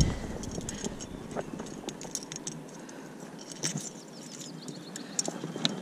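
Irregular light clicks and taps of handling noise as a freshly caught zander is held and moved about over the boat and tackle.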